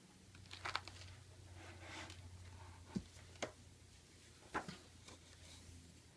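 Hardcover book being handled and opened, its paper pages turned: soft rustling with a few short sharp ticks of hands and pages, faint throughout.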